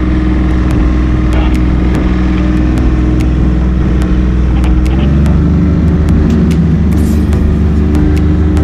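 Rescue boat's engine running steadily close up, its pitch stepping up about halfway through as the boat is driven alongside the ship, with scattered sharp ticks over it.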